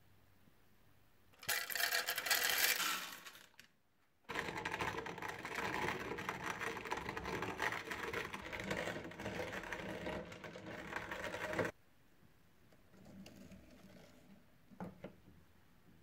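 Antique TIX hand-cranked coffee grinder grinding whole coffee beans: a steady, dense crunching and rasping for about seven seconds that stops suddenly. Before it comes a loud rattle of about two seconds, and after it fainter handling noises with a sharp click near the end.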